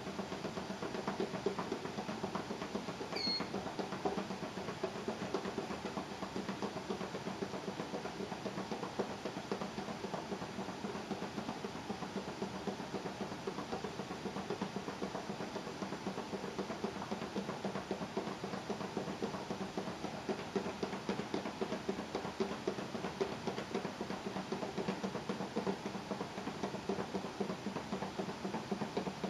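Plastic box holding a removed prosthetic implant in Ringer's solution, wrapped in a sterile drape, shaken vigorously by hand: a fast, even rustling and shaking noise that keeps up without a break. This is the 30-second shaking step before sonication.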